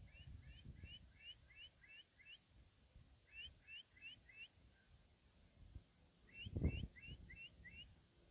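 A bird calling in runs of short rising chirps, about three or four a second, in three bursts, over a faint low rumble, with one low thump about six and a half seconds in.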